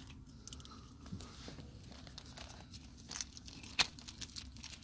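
Faint crinkling and rustling of plastic packaging and bubble wrap as fingers work a small part free, with a couple of sharper clicks near the end.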